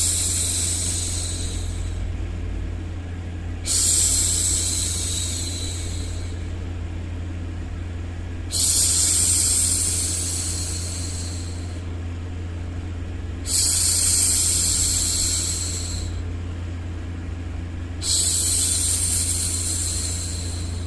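A woman shushing a baby: long, hissing 'shhh' sounds, one already under way at the start and four more beginning about every four and a half to five seconds, each fading out over about two seconds. Beneath them runs a steady low white-noise hum.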